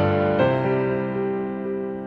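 Slow keyboard music, piano-like: a new chord struck about half a second in, its notes left to ring and slowly fade.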